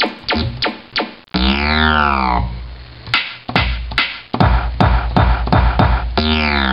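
A string of comic noise effects: sharp clicks and knocks about three a second, then a long pitched tone that falls and wobbles. Faster clicks and hits follow over a low drone, and a swooping, siren-like wavering tone begins near the end.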